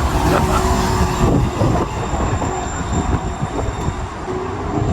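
MAX light-rail train running past on a downtown street, a steady low rumble amid city street noise.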